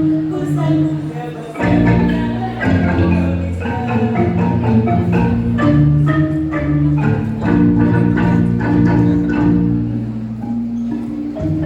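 A kolintang ensemble, the Minahasan set of wooden xylophones, playing a quick, rhythmic melody in rapidly struck notes over sustained bass notes. The sound grows fuller and louder when the low bass comes in about two seconds in.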